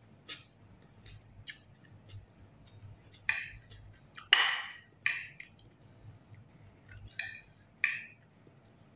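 Eating from a plate: about seven short clinks and scrapes of cutlery on the plate, the biggest about four seconds in.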